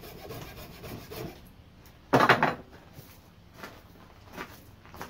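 Coping saw cutting through the old wooden axe handle in quick, even strokes, which stop about a second in as the cut finishes. About two seconds in there is a short, loud knock.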